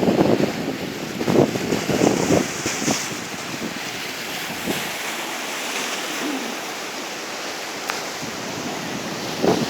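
Sea surf washing onto the shore in a strong wind. Gusts buffet the microphone heavily for the first couple of seconds and again near the end.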